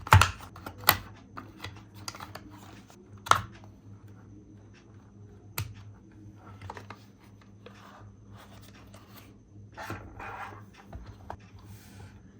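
Handling noises of a plastic toy RC car and its packaging: sharp clicks and knocks with scratching and rustling in between. The loudest knocks come right at the start and about three seconds in.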